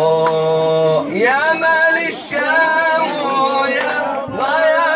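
A man sings an unaccompanied Arabic vocal melody in the mawwal style. He holds long, wavering notes with ornamented pitch bends, and a little after a second in he breaks and slides up into a new phrase.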